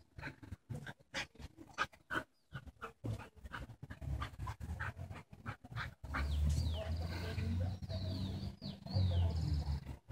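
A Samoyed and a Schnauzer playing rough, with quick, irregular panting and snuffling breaths. About six seconds in, a steady low rumble sets in, with high thin chirps that fall in pitch several times.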